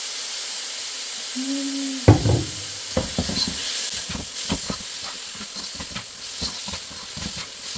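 Minced beef and carrot frying in hot oil in a pan, sizzling and hissing steadily after dark soy sauce has gone in. From about two seconds in, a spatula knocks and scrapes against the pan over and over as the meat is stirred.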